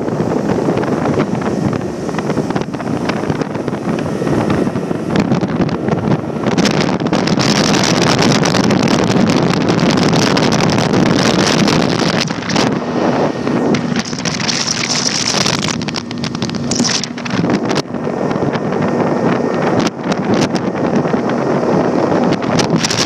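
Motorboat under way, its running mostly buried under loud wind buffeting the microphone. A faint steady hum comes through about halfway in and holds until near the end.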